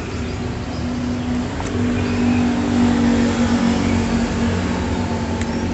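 An engine running steadily, its pitch drifting up and down a little, with a couple of faint clicks.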